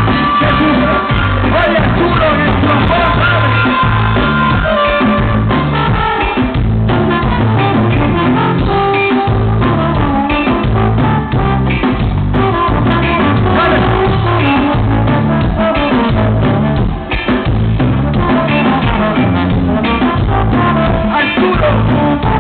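A live band playing loud, upbeat Latin music through a PA, with electric bass, drums and a singer's voice on a steady beat, recorded from the crowd.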